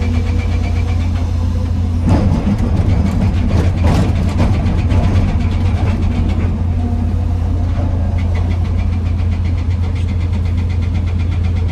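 Hydraulic excavator's diesel engine running steadily with a strong low hum. It grows louder and busier, with some clatter, from about 2 to 6 seconds in as the machine works under load, then settles back to a steady run.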